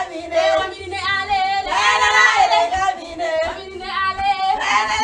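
Female voices singing a song.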